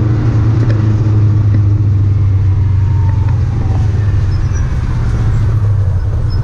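Engine of an off-road trail vehicle running at a steady pitch while riding along, with a constant low hum and a haze of travel noise.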